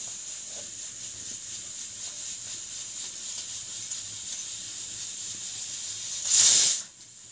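Steady hiss of a wood fire burning under an aluminium pressure cooker, with a thin high whine over it. Near the end there is one loud rush of noise lasting about half a second.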